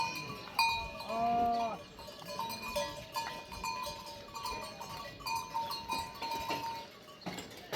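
Bells on a flock of livestock clinking irregularly as the animals move, with one drawn-out bleat about a second in.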